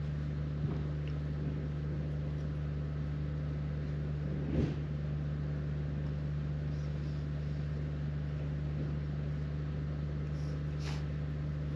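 Generator engine running steadily, a low, even hum. A short knock comes about four and a half seconds in.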